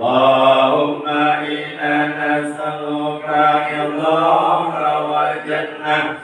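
Voices chanting Arabic dhikr on a drawn-out, steady melodic line, with a short break at the end of a phrase near the end.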